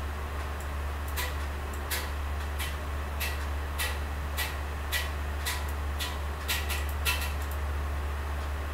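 Computer mouse clicking: about a dozen sharp clicks, roughly one every half second, over a steady low hum.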